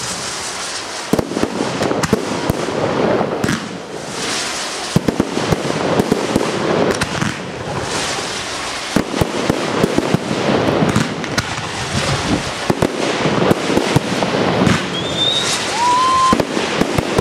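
Fireworks display: dense, continuous crackling with many sharp bangs, from glittering crackle bursts and comets going off overhead.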